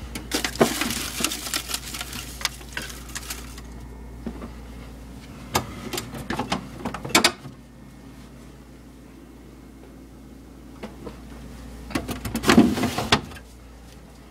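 A refrigerator crisper drawer being handled and a plastic bag of apples inside it rustled, in three bouts of rustling and clicks, the last and loudest near the end. A low steady hum runs beneath.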